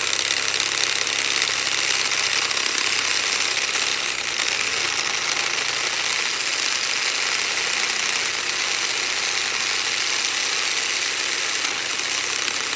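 Makita cordless drill running steadily at high speed in reverse, a 29 mm bit grinding and scraping into a metal part to widen its hole. Run backwards, the bit scrapes its way down rather than biting in.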